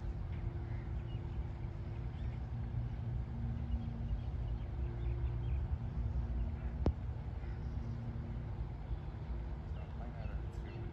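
Outdoor ambience on a golf putting green: a steady low rumble with faint bird chirps, and a single sharp click about seven seconds in.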